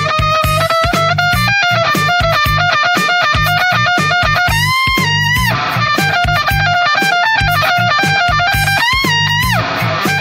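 AI-generated rock music: a distorted electric guitar lead over drums and bass. The lead bends its notes upward about halfway through and again near the end.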